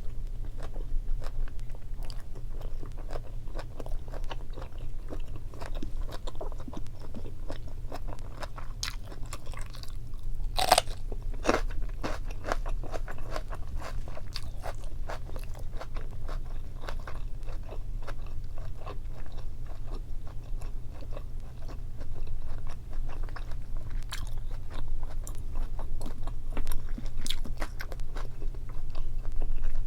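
Close-miked chewing and biting of boiled meat and kimchi: a steady run of irregular, wet crunches, with one sharper, louder crunch about ten seconds in.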